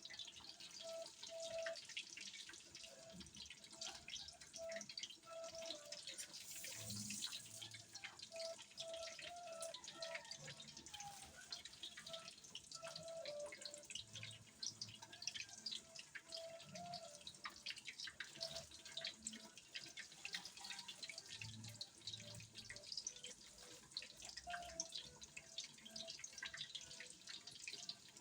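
Food frying in hot oil: a dense, irregular crackle and sizzle.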